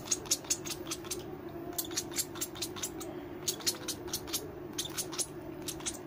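Irregular soft clicks, a few a second, as the lovebird chick nibbles and clicks its beak against fingers and glove, over a steady low hum.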